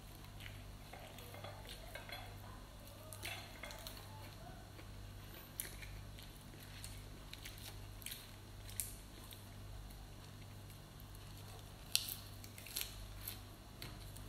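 Fresh leafy greens being torn and handled over a ceramic plate: scattered small clicks and crisp snaps over a low steady hum.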